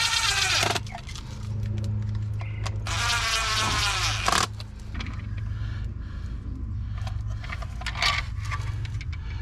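A fly buzzing close to the microphone, passing twice, its buzz dipping in pitch as it moves off. A steady low hum runs underneath, with a few light clicks later on.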